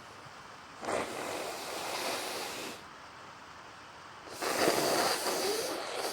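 A person sneezing twice, wet and breathy. Each sneeze starts suddenly and trails off as a hiss; the second one, about four seconds in, is louder.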